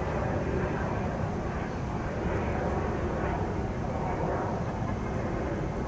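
Steady outdoor ambient rumble, an even low noise with no distinct events.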